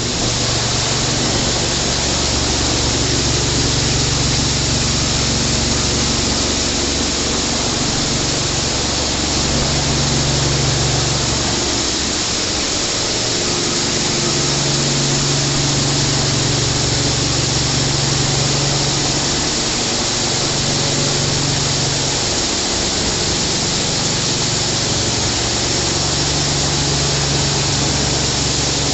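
Water jets from a WashTec SoftCare 2 Pro rollover car wash gantry hissing steadily onto a car, over the low hum of the machine's pump and motors, which drops out and returns several times.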